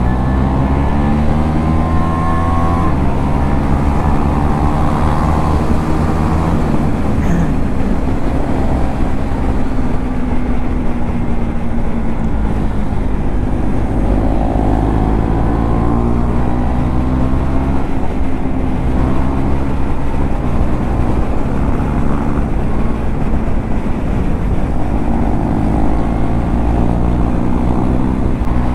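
KTM Duke 390's single-cylinder engine through an Akrapovic exhaust, under way at highway speed: its note climbs and drops several times as the rider works the throttle and shifts gears, over a heavy rush of wind.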